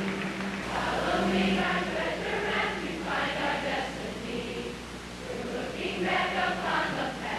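A large group of high-school students singing a song together in unison.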